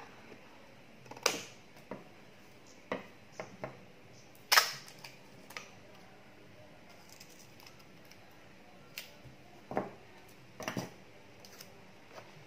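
Scissors snipping a thin cardboard strip and packing tape being handled and cut, heard as scattered sharp snips and clicks with short rasps; the loudest come about a second in and about four and a half seconds in.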